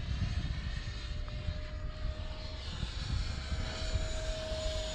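Electric ducted fan of a small RC model jet heard in flight at a distance: a thin, steady whine that grows stronger about halfway through, over a low rumbling noise. The fan is running underpowered, which the pilot puts down to snow it ingested and a dirty intake.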